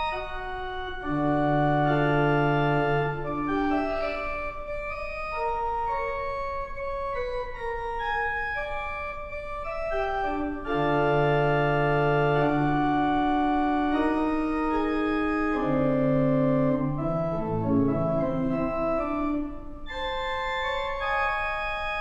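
Pipe organ playing slow sustained chords, with deep pedal bass notes that come and go and a short moving bass line near the end.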